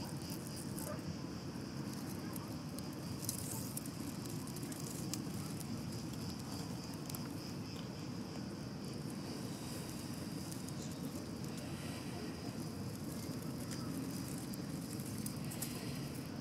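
Steady high buzzing of insects over a low, even rumble, with scattered faint clicks.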